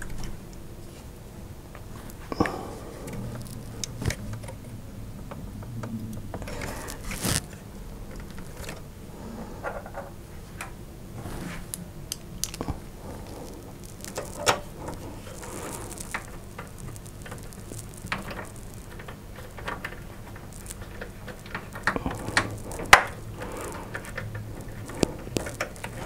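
Handling noise from fitting a graphics card into a steel PC case: scattered clicks, taps and light scrapes of metal parts, with a louder click about seven seconds in and the sharpest one near the end.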